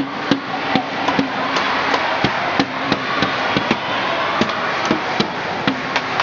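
Spectators beating out a steady rhythm of sharp knocks, about two and a half a second, over continuous crowd noise.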